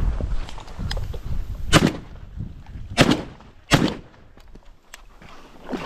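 Shotgun fired three times in quick succession, the second and third shots under a second apart, each a sharp report with a short echo.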